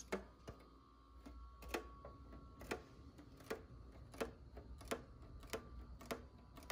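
Faint clicking from a Dell CRT monitor's casing, a little over one click a second and slightly uneven, over a faint steady tone.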